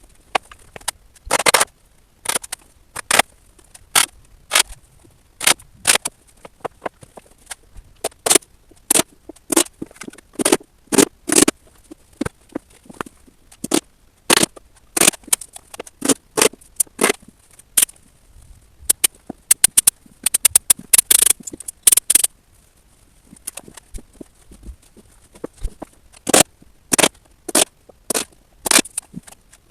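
A long run of sharp knocks at an irregular pace, often one or two a second, coming in clusters with short pauses.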